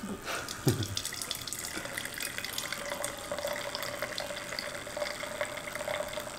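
Red wine pouring steadily from a bottle through a pour-spout aerator into a stemless wine glass, a continuous splashing trickle; about halfway through, a steady ringing tone from the filling glass comes in.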